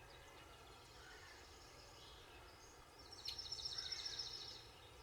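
Faint outdoor riverside ambience with distant bird calls, and a rapid, high ticking trill lasting about a second and a half, starting about three seconds in.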